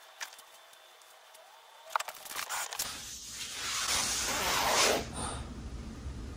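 A French bulldog passing gas: a long hissing fart that builds for about two seconds and cuts off about five seconds in.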